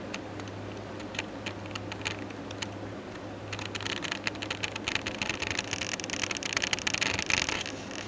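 A dense patter of light clicks and rustling over a steady low hum, growing busier about three and a half seconds in and easing near the end.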